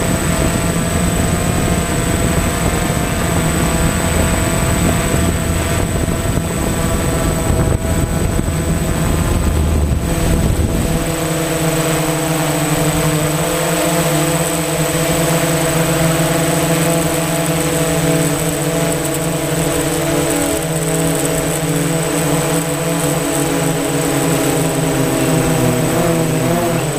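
DJI Phantom FC40 quadcopter's motors and propellers humming steadily in flight, with a thin high whine alongside. Wind rumble on the microphone dies down about eleven seconds in.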